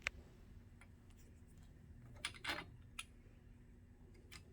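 A few faint, scattered clicks and light knocks, a second or so apart, over a faint steady low hum.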